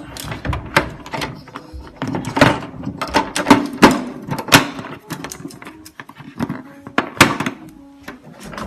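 Plastic parts of an unpowered portable dehumidifier being handled, most likely its water tank being pulled out and fitted. The sound is an irregular run of clicks and knocks.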